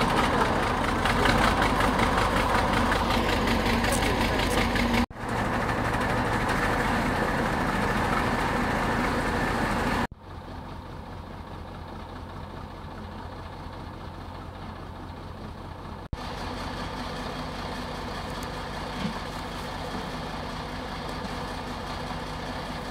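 Narrow-gauge diesel locomotive's engine idling steadily, loud and close at first, then more distant and quieter from about ten seconds in.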